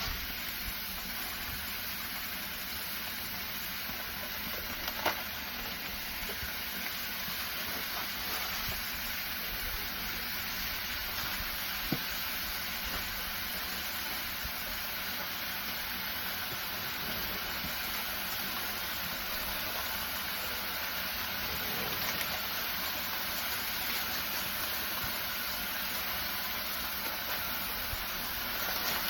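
Sausage-meat patties sizzling steadily on a hot Blackstone flat-top griddle, with two short sharp clicks, one about five seconds in and one about twelve.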